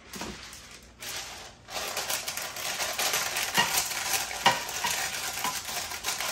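Parchment paper crinkling and rustling as it is pressed and folded into a glass loaf pan, starting about two seconds in, with a few sharper crackles along the way.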